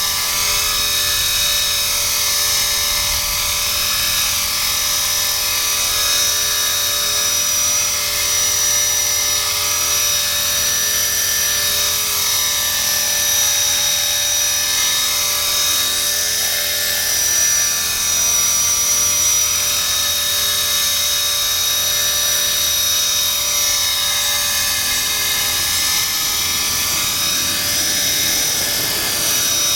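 Blade 400 electric RC helicopter hovering: a steady high-pitched whine of its motor, gears and rotor blades, with a slow wavering in the tone every few seconds as it shifts in the hover.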